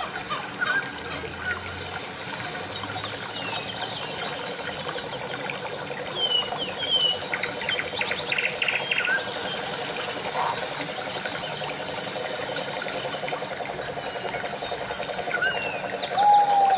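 Several birds chirping, with many short whistled notes and a quick run of notes about eight seconds in, over a steady background hiss.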